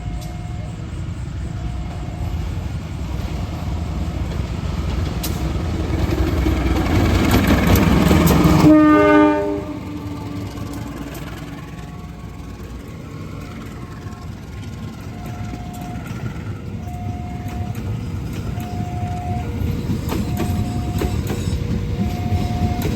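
A train approaching and passing: its rumble builds steadily, a short train-horn blast sounds about nine seconds in, then the cars roll by with wheel clatter. A two-note warning chime repeats about every second and a half through most of the clip.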